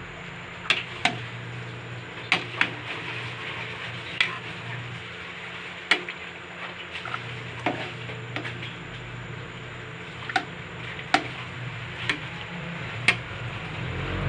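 Metal ladle stirring a pot of milky macaroni soup in a large metal pot, clinking against the pot about eleven times at irregular intervals over a steady hiss from the simmering pot and stove.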